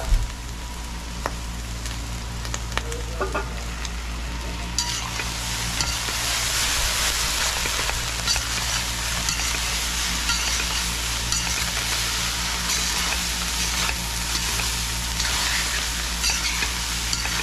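Fried rice being stir-fried: a steady sizzle with the scrape and clink of a spoon or spatula working the rice in the pan. The sizzle grows louder about five seconds in.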